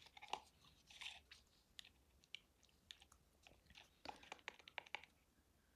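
Faint, scattered light clicks and small crackles of hands handling a small rolled-paper tube and a plastic glue bottle, with a brief cluster of ticks about four seconds in.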